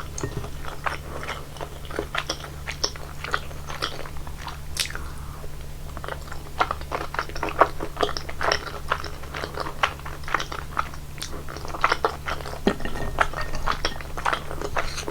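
Close-miked chewing of rosé tteokbokki: a dense, irregular run of small mouth clicks and smacks over a steady low hum.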